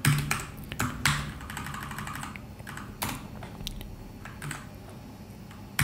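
Typing on a computer keyboard: a handful of separate keystrokes at an uneven pace, with short pauses between them.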